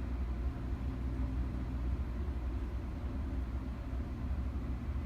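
Steady low mechanical hum and rumble, even throughout, with a faint hiss above it.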